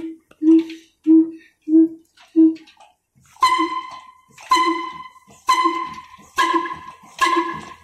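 Old 35 HP heavy diesel engine with large spoked flywheels running, with evenly spaced exhaust beats at about one and a half a second. About halfway through the beats come slower, about one a second, each with a ringing metallic tone that dies away between them.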